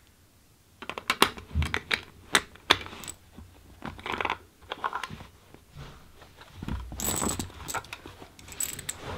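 .223 rifle cartridges and a polymer PMag magazine being handled: a quick, irregular run of sharp clicks and metallic clinks that starts about a second in.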